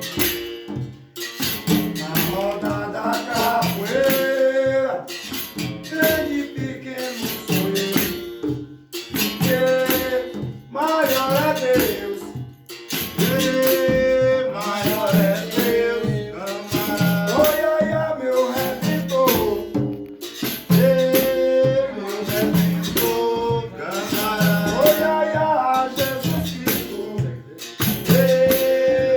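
Capoeira music: a berimbau played with its caxixi rattle keeping a steady rhythm, under singing in phrases.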